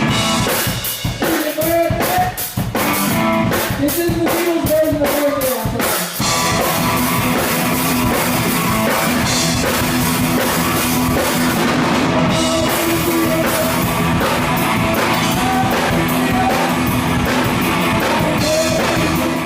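Live rock band playing loudly, drum kit and electric guitar, with stop-start hits for about the first six seconds before settling into a steady groove.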